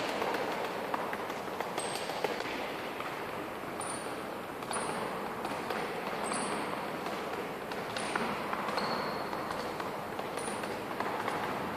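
Quick light footsteps of sneakers tapping on a gym floor during an agility-ladder footwork drill, with short high-pitched shoe squeaks every second or so.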